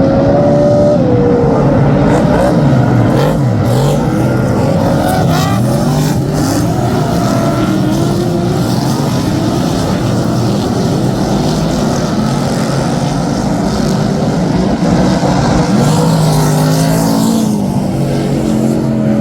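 Several V8 superstock race cars running on the speedway. Their engines overlap, each note falling and rising as the cars back off and accelerate again.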